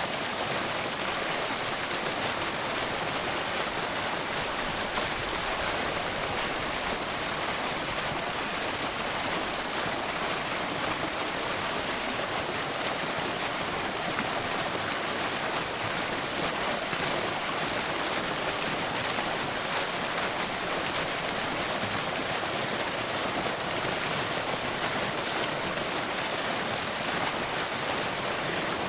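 Water fountain splashing steadily: an unbroken hiss of falling water, mostly high-pitched, with no rise or fall.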